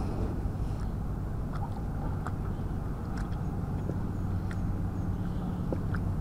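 A metal spoon scraping and clinking in a metal pot as rice is stirred into broth, a few light, scattered clicks over a steady low hum.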